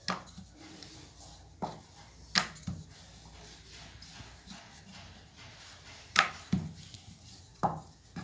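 Wooden rolling pin and dough knocking on a wooden board as dough is rolled out: a few separate sharp knocks, loosely spaced, with quiet rolling between them.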